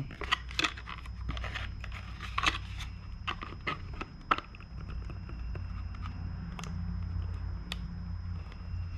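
Scissors cutting through a thin moulded-plastic RC car inner fender: a run of sharp snips and crunches, closer together in the first half, over a low steady hum.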